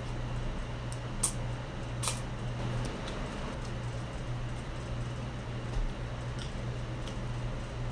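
Close-up eating sounds of ramen noodles being slurped and chewed, with a few short sharp clicks, the clearest about one and two seconds in, over a steady low hum.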